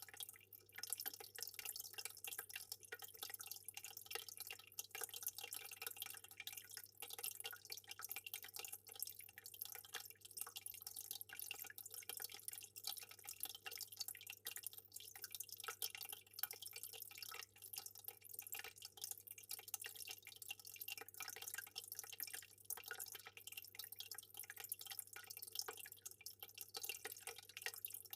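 Aquarium water trickling and dripping, a dense continuous patter of small splashes, over a steady low hum.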